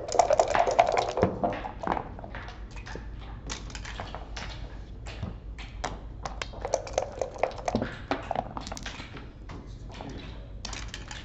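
Backgammon checkers and dice clicking on the board: a run of sharp taps as checkers are moved and dice are rolled.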